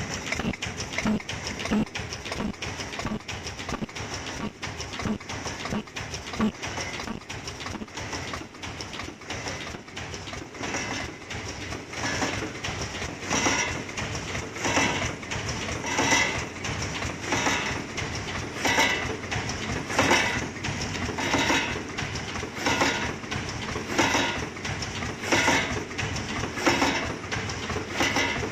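Automatic surgical-mask packing machine running, with fast, steady mechanical clicking. In the second half a heavier stroke repeats about every second and a half.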